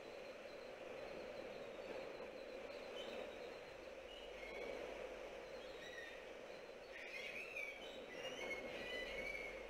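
Faint steady rushing noise over open sea, with short high bird chirps here and there, more of them in the last few seconds.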